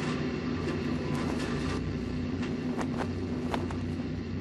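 A steady low engine drone with a faint hiss, broken by a few sharp clicks about halfway through.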